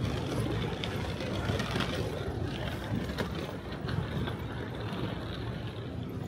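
Busy city street ambience: a steady rumble of traffic with people walking past.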